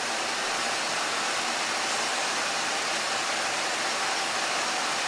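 A steady, even hiss of rushing-air background noise that holds the same level throughout, with no distinct events.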